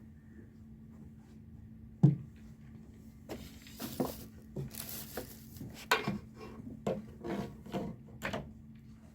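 Handling noises: a sharp knock about two seconds in, then a run of irregular knocks and rubbing, with a brief hiss in the middle.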